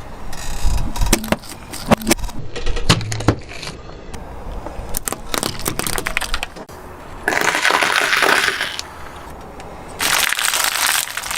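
Crunching and cracking of brittle things being crushed: many sharp cracks, with two longer stretches of dense crackling about seven and ten seconds in.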